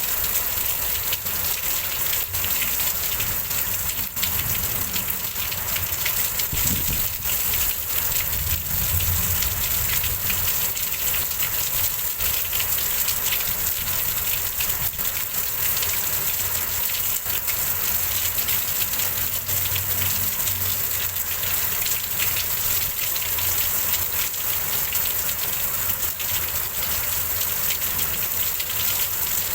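Heavy rain falling steadily in a windstorm, a dense hiss of drops, with a low rumble that swells and fades at times.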